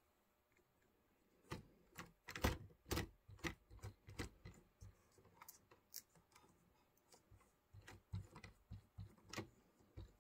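Irregular small plastic clicks and taps of a model train locomotive being handled and set on the track by hand, starting about a second and a half in.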